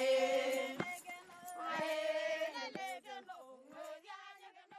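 Singing voices on held, wavering notes, with a few sharp percussive hits, fading out near the end.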